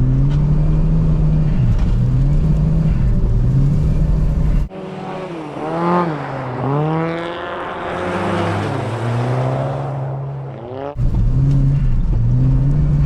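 Car engine revving up and down repeatedly, its pitch rising and falling every second or two as the car is driven in a drift on ice. About five seconds in, the sound cuts abruptly to a thinner, higher revving engine with less bass, and it cuts back to the first engine sound about eleven seconds in.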